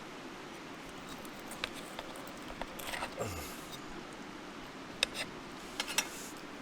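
Steady rushing of a mountain stream, with a handful of small, sharp clicks and taps scattered through it: one about 1.5 seconds in, a cluster near the middle, and a few more near the end.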